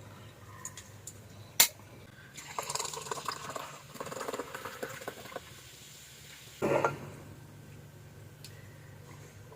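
Tableware being handled at a meal: a sharp clink about a second and a half in, then a few seconds of liquid and dish sounds, and a short knock near seven seconds.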